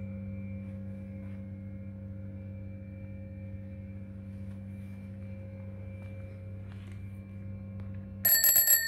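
A steady low hum runs under everything. Near the end, the chrome handlebar bell of a Zündapp R50 scooter is rung once with the thumb: a sudden, loud, bright ring whose high tones hang on briefly.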